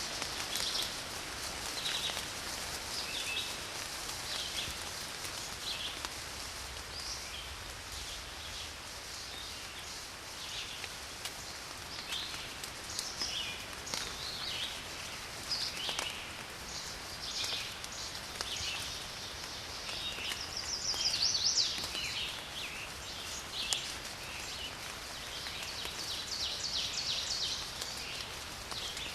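Steady rain hiss with birds chirping over it: many short high calls throughout, and quick trilled runs about two-thirds of the way through and again near the end.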